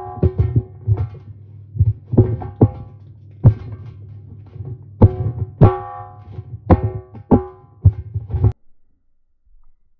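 Background music with a heavy bass beat and plucked notes, which cuts off abruptly about eight and a half seconds in.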